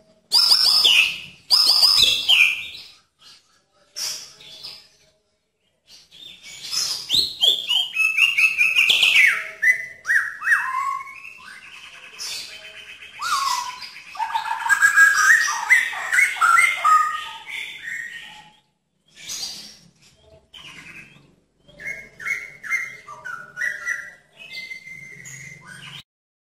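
White-rumped shama (murai batu) singing: loud, varied whistled phrases, many notes sliding downward, broken by a few short pauses.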